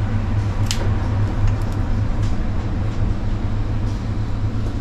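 Steady hum and rush of air from an electric blower running without change, with one light click about two-thirds of a second in.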